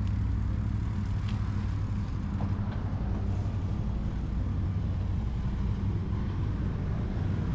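Steady low rumble of wind buffeting a helmet-mounted action camera, together with the knobby tyres of a mountain bike rolling on pavement during a ride, with a few faint light ticks.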